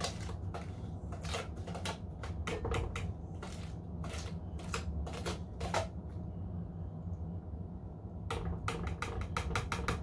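A wire whisk beating a thick, creamy cookie mixture in a plastic tub, with irregular clicking and scraping strokes against the tub's sides. The strokes stop for a couple of seconds, then come quicker near the end.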